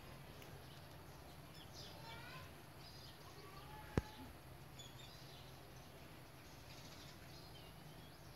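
Faint bird chirps, short high calls scattered through, over a low steady hum, with a single sharp click about four seconds in.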